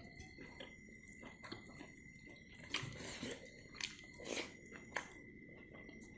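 A person chewing food close to the microphone: many small wet mouth clicks, with a few sharper crunchy bites around the middle.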